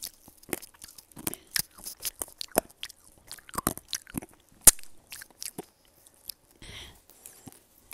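Close-miked crunching and chewing of tanghulu: the hard glassy sugar shell on candied strawberries cracking between the teeth in irregular sharp crunches, with one especially loud crack a little past halfway.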